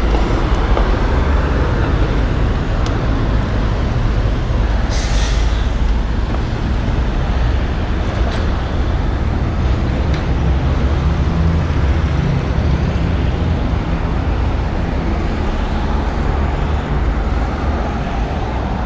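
Steady road traffic noise with a heavy wind rumble on the microphone, and a short hiss about five seconds in.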